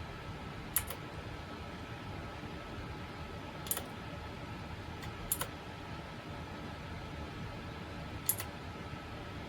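Single key presses on a mechanical keyboard with clicky Cyan switches: about five sharp clicks, spaced one to three seconds apart. A faint steady hum runs underneath.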